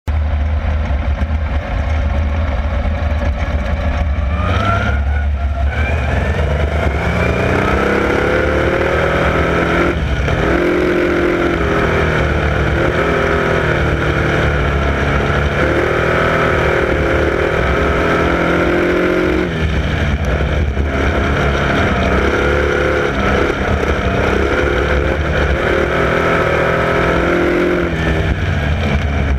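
Wingless sprint car's V8 engine heard from the car's own cockpit, running low for the first few seconds, then revving up hard about four seconds in. After that its pitch rises along the straights and drops off into the turns, over and over, as it races round a dirt oval.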